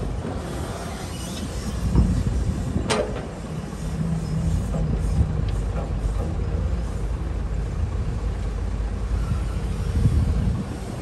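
Cat 320C hydraulic excavator's diesel engine running steadily under load as it swings back, digs into a dirt pile and lifts a full bucket. A brief high, falling squeal comes about three seconds in.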